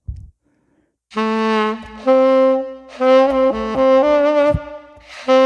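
Saxophone playing a short melodic phrase, starting about a second in: held notes with a few quick ornamental note changes in the middle.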